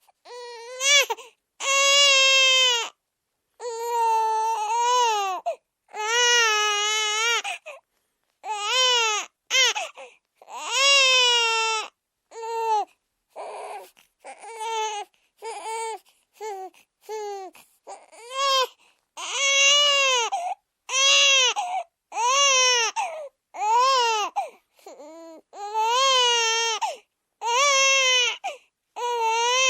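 Infant crying hard: a long series of high-pitched wails, each a second or two long, rising and then falling in pitch, with short gaps for breath between them.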